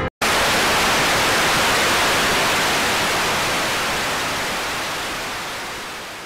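Loud hiss of television static, cutting in after a split-second dropout and then fading out slowly over the last few seconds.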